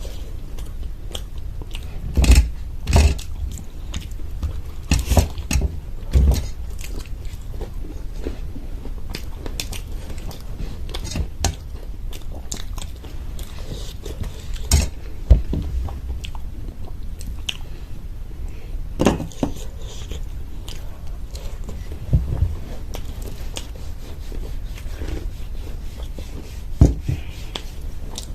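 Someone biting and chewing homemade samosas close to the microphone: crisp, sharp bites every few seconds with chewing in between.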